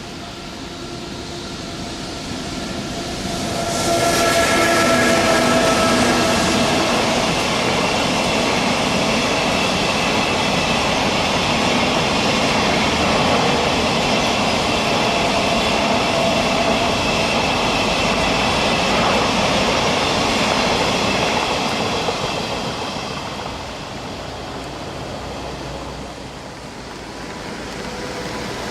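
Electric freight train passing. The locomotive comes in with a steady whine at several pitches, then the wagons rolling on the rails give a loud, steady rush from about four seconds in, which fades after about twenty-two seconds.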